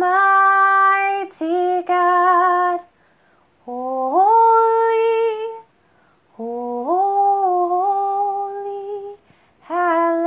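A woman singing slowly and unaccompanied, holding long notes in several phrases with short pauses for breath between them; two of the phrases slide up into their first note.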